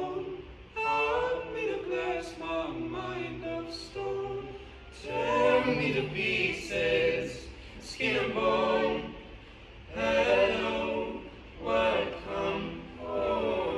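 Choir singing in phrases with short breaks between them, over steady low held notes.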